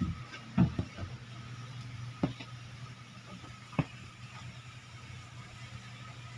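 Hands pressing and patting cornstarch onto a whole pompano on a plate: about five short thumps and taps of fingers against the fish and plate, over a steady low hum.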